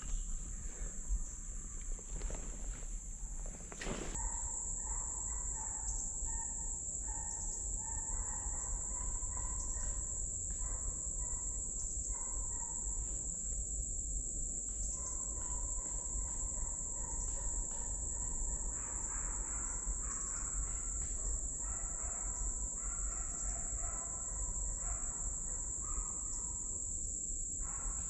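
Steady, high-pitched insect chorus droning in summer woods, with fainter broken calls from other animals lower down.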